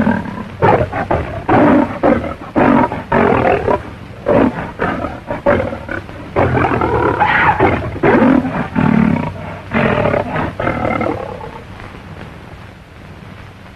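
Lion growling and roaring in short, repeated bursts as it fights, dying away about eleven seconds in.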